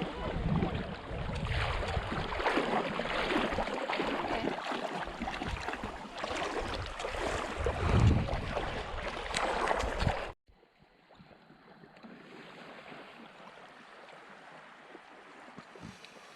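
Wind blowing hard across the microphone, a loud rushing noise with gusty low rumbles. It cuts off abruptly about ten seconds in, giving way to a much quieter faint steady hiss.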